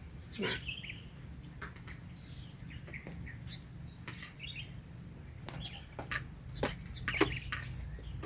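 Birds chirping in short scattered calls, with several sharp taps standing out over a steady low background hum.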